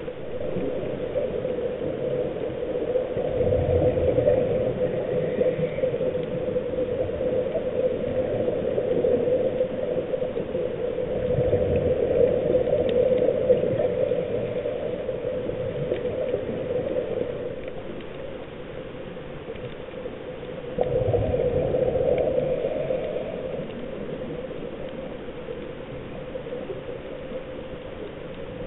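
Underwater sound of a scuba diver's exhaled bubbles gurgling from the regulator in three louder spells, about every eight to ten seconds, over a steady hum.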